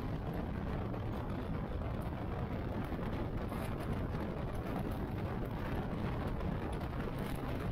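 Motorcycle riding along: a steady rush of wind and engine noise, heaviest in the low end, holding even without rising or falling.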